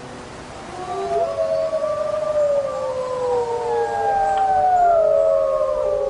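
Several gray wolves howling together in long, overlapping howls that slide slowly downward in pitch, starting about a second in.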